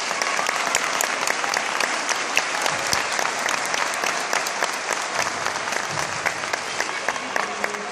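Audience applause: many hands clapping together, slowly tapering off.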